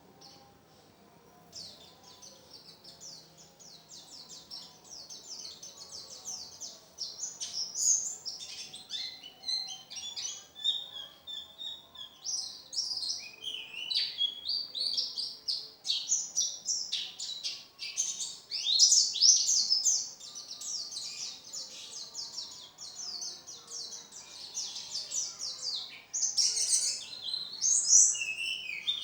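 White-eye (pleci) singing continuously in a rapid, varied stream of high chirps and twittering trills, growing louder a few seconds in.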